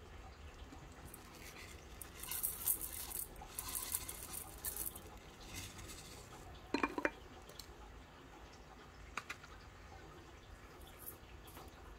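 Small pebble gravel rattling and crunching under fingers inside a glass fish bowl, pebbles clicking against the glass, mostly in the first half. A sharp ringing clink a little past halfway and a smaller click later.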